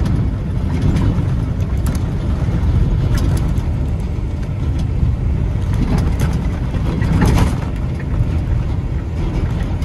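Semi truck's diesel engine and drivetrain running as the truck drives slowly, a steady low drone.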